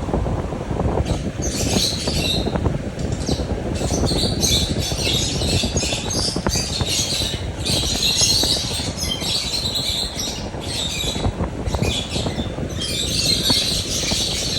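Small cage birds bathing in a water bowl: constant fluttering of wet wings and splashing water, with bursts of high chirping chatter from the flock.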